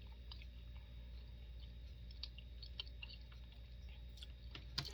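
A person chewing food quietly, with faint small mouth clicks throughout and one sharper click near the end.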